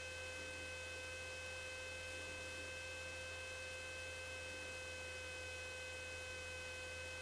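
Faint, steady electrical hum with a few unchanging high whine tones over a light hiss, as heard on an aircraft intercom or radio audio line between transmissions.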